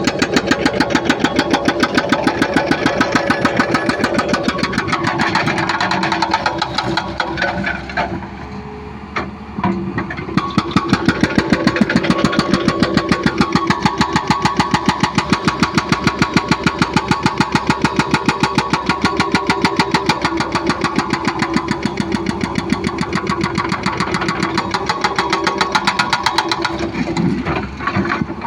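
Hydraulic excavator at work demolishing concrete: its diesel engine runs under a fast, regular hammering of about six blows a second, which slackens briefly about eight seconds in.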